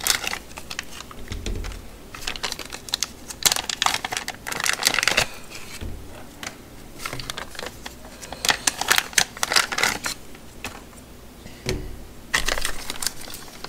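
Handling noise from unpacking small silicone remote covers: plastic bags rustling and the covers clicking and tapping as they are set down on a tool chest top, in irregular clusters, with a few dull thumps.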